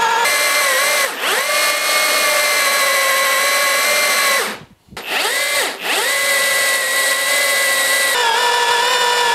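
Electric drill boring into a stone block with a 25 mm marble-drilling bit: a steady motor whine that sags under load about a second in. It stops for about half a second around the middle, spins back up and runs on, sagging again near the end.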